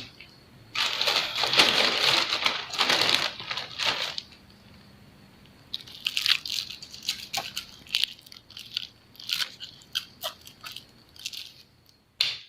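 Rustling, crinkling noise in dense bursts for a few seconds, then a string of short clicks and scrapes.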